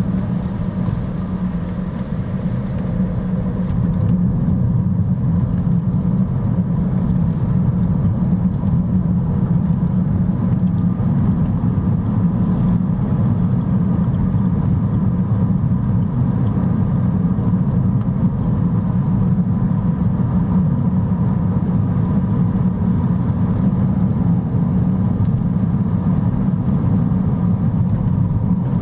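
Lexus CT 200h on the move: a steady, deep road and tyre rumble that swells over the first few seconds as the car picks up speed, then holds even.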